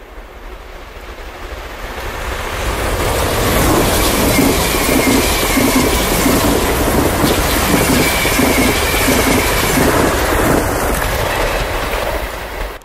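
Siemens Desiro RUS 'Lastochka' electric multiple unit passing at speed: the noise builds as it approaches, then a loud rush with rhythmic wheel clatter about twice a second and a high whine that swells twice. It cuts off suddenly near the end.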